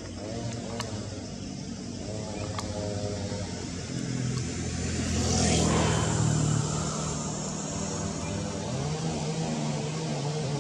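A motor vehicle's engine running, growing louder about four seconds in and loudest around five to six seconds, then easing off, as a vehicle passing by.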